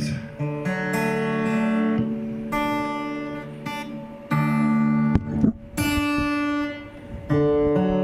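Acoustic-electric guitar strummed, a series of chords each left to ring before the next, with a short break a little after halfway.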